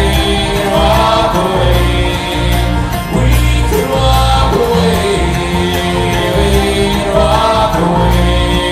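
Bluegrass string band playing live: banjo, acoustic guitar, mandolin and upright bass together, with the upright bass notes strong underneath.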